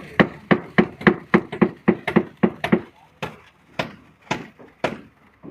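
A rapid run of sharp knocks, about four a second, slowing to about two a second after three seconds and stopping shortly before the end.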